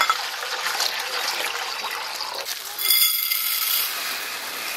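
Water pouring from a plastic bucket into a large steel bowl, splashing steadily. About three seconds in, a brief, brighter rattle with a ringing edge as red lentils are tipped from a plastic bag into a small steel bowl.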